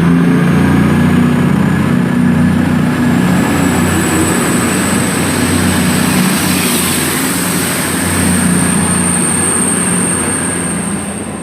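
CrossCountry Class 220 Voyager diesel-electric multiple unit pulling away under power, its underfloor Cummins diesel engines running with a steady drone and a thin high whine. It grows gradually quieter near the end as the train draws away.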